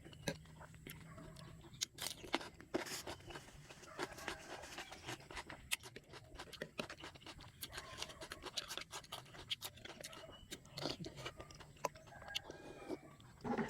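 Close-up eating sounds: irregular sharp cracks and crunches with chewing, as crab shells are broken open and the meat eaten.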